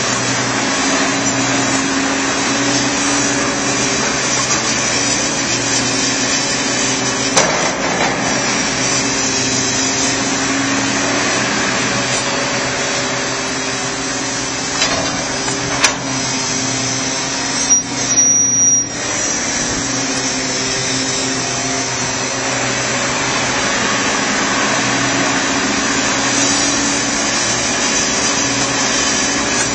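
John Deere backhoe loader's diesel engine running steadily, its note swelling and easing with the load as it digs and loads dirt, with a couple of sharp knocks partway through.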